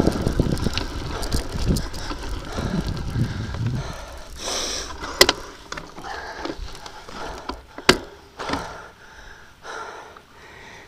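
Tyres crunching on a gravel track and wind on the microphone, fading away over the first few seconds as the ride slows. Then scattered clicks and rattles, with two sharp knocks about five and eight seconds in.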